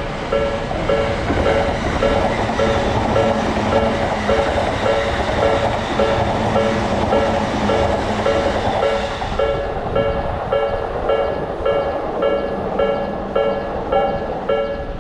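Railroad crossing alarm bell ringing about three times a second while a train passes with a rushing, rattling noise. The train noise ends about nine or ten seconds in, and the bell keeps ringing.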